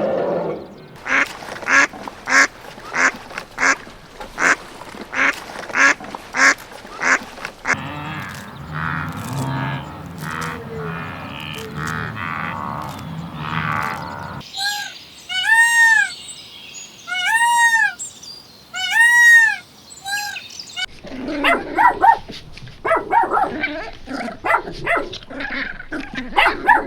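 Domestic fowl calling in a long series: first short calls repeated about twice a second, then a lower, rougher stretch, then a run of short arched calls about one a second, then more irregular calls near the end.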